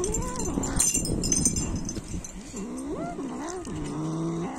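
Cat growling in drawn-out, wavering moans while it eats raw chicken, food-guarding, with wet clicking chewing and tearing sounds in the first second or so.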